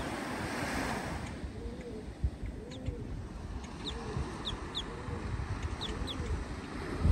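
Small surf washing up on the beach, with wind rumbling on the microphone. Over it, birds call: a low, arching call repeating about once a second, and short high chirps.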